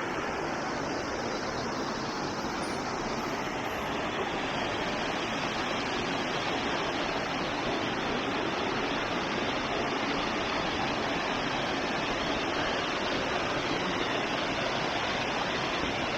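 Small waterfall with water rushing and splashing, a steady, even roar of falling water with no change in level.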